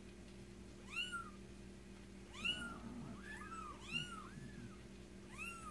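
Young kitten mewing repeatedly while being washed in a flea bath: six or seven short, high-pitched cries, each rising and falling, a few overlapping in the middle.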